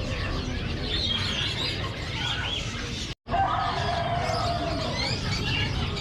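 Many caged birds chirping and twittering together over a steady low hum of market activity. The sound drops out briefly about three seconds in, then the chirping resumes with a longer wavering call among it.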